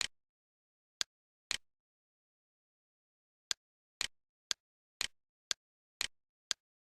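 Computer mouse clicks: about ten short, sharp clicks on a steady half-second beat, with a pause of about two seconds after the first three, in dead silence between them.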